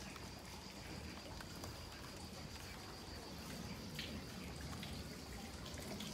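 Garden fountain trickling faintly into its stone basin, with a few scattered drips.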